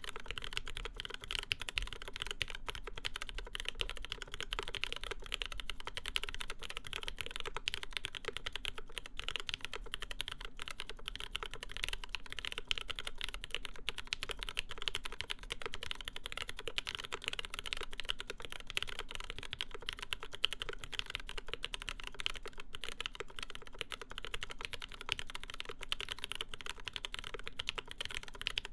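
Continuous fast typing on a Kyuu mechanical keyboard with an aluminium full plate, GMK keycaps and linear MX Black switches with UHMWPE stems, lubed with silicone grease: a dense, even stream of key strokes and bottom-outs.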